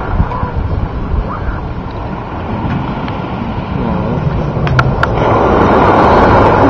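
Wind rumbling on the microphone over the wash of small waves on the beach, growing louder in the last second or two.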